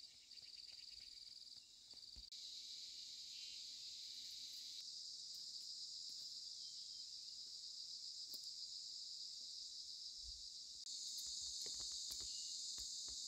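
Insects buzzing in a steady high-pitched chorus, getting louder about two seconds in and again near the end.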